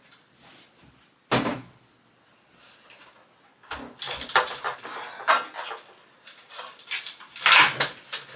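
Knocks, clicks and rattles of things being handled and set down, with one sharp knock about a second and a half in and a busy run of clattering and rustling through the second half.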